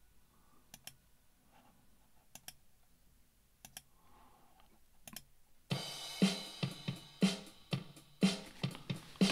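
A few mouse clicks, then about two-thirds of the way in a drum-driven music track starts abruptly: the playback-test sound of Yamaha's NETDUETTO session software.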